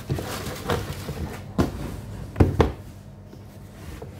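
Cardboard sneaker box and shoe being handled: a few light knocks and rustles, the loudest a quick double knock about two and a half seconds in.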